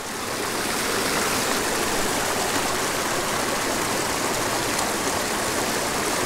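Small creek water running steadily over shallow riffles, an even rushing and babbling.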